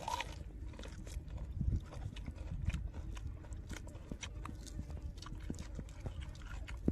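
A person eating close to the microphone: chewing with irregular wet clicks and smacks of the mouth.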